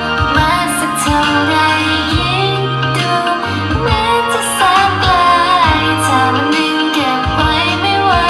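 Thai pop song with a woman's singing voice carrying the melody over a bass line that moves in held notes.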